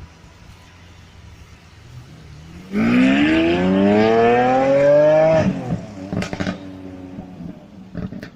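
Lamborghini Aventador S's naturally aspirated V12 accelerating hard: a low engine note turns suddenly loud about a third of the way in and climbs steadily in pitch for nearly three seconds, then cuts off sharply as the throttle is lifted. A few loud exhaust crackles and pops follow on the overrun.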